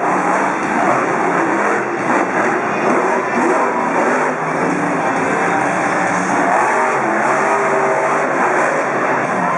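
Monster truck engines running hard at high revs: a loud, steady, continuous din.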